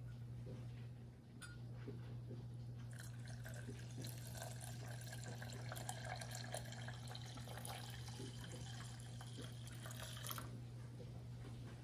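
Pickling liquid poured in a thin stream from a glass measuring cup into a stainless-steel saucepan, starting about three seconds in and stopping near the end, over a steady low hum.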